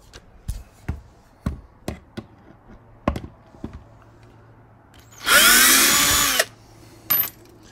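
Power drill with a T25 Torx bit running for a bit over a second as it backs a screw out of the plastic under tray, its motor spinning up and then winding down. Before it come scattered light clicks and taps as the bit is fitted to the screw.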